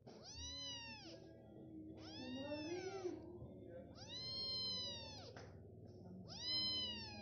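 A month-old kitten mewing: four high-pitched mews about two seconds apart, each rising and then falling in pitch.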